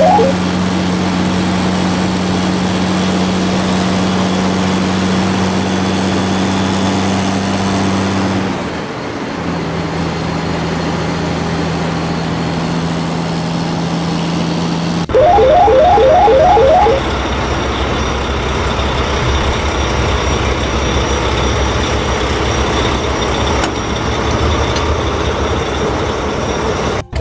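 Truck engine sound effect running steadily, dropping to a lower pitch about a third of the way through. A short jingle of quickly repeating notes comes in about halfway, then the engine sound goes on, rougher and noisier.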